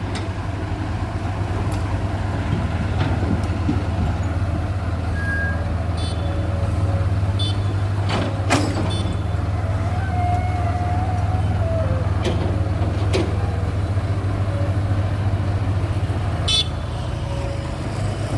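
Heavy diesel engine running steadily at low revs, with a few sharp metallic clanks and a short held tone a little past halfway.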